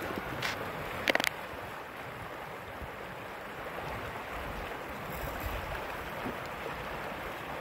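Steady rush of river water flowing over a riffle. A quick cluster of sharp clicks about a second in.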